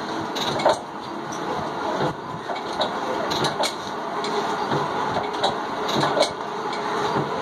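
Ruston Hornsby stationary engine being turned over by hand with an iron bar to start it: irregular metallic clicks and clanks over a steady rushing mechanical noise.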